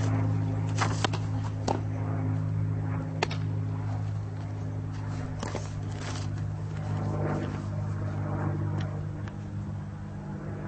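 A softball smacks into a catcher's mitt with a sharp pop about a second in, followed by a few lighter knocks later, over a steady low hum.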